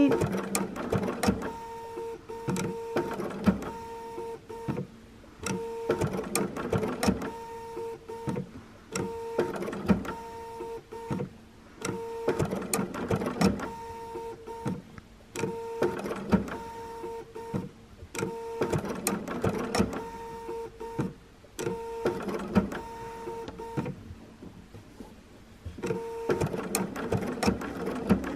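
Sewing machine sewing a blanket stitch in short runs: the motor hum and needle clatter start and stop again and again as the fabric is turned around a tight curve between stitches, with a longer pause near the end.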